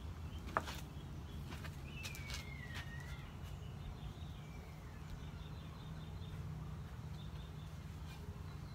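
Backyard ambience: a steady low hum, with a single bird call gliding down in pitch about two to three seconds in, and a few light taps near the start, the loudest a sharp one just after half a second.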